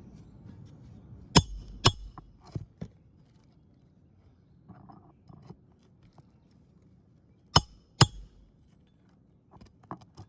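Asphalt shingles being lifted and bent back, giving sharp cracking clicks: two loud pairs about half a second apart, one near the start and one past the middle, with a few lighter clicks between. The shingles are stiff and creasing as they bend.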